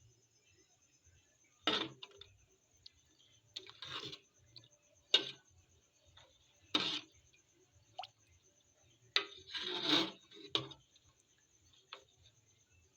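Cooking utensils knocking and scraping against a pot, in about a dozen short separate bursts with pauses between.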